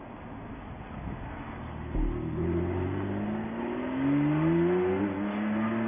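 2018 Porsche 911 Carrera T's twin-turbo flat-six accelerating away, quieter at first, then its engine note getting louder about two seconds in and climbing steadily in pitch as the revs rise.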